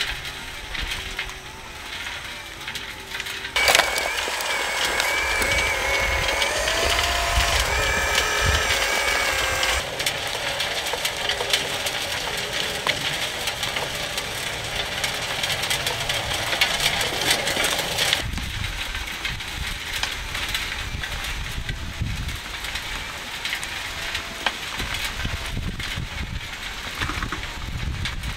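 Scale RC gold-mining trommel running: small electric gear motors and a chain drive turn the steel screening drum and conveyor belt, with dirt and rocks rattling through. About four seconds in the sound grows louder and busier, with a wavering whine, and it eases back around eighteen seconds in.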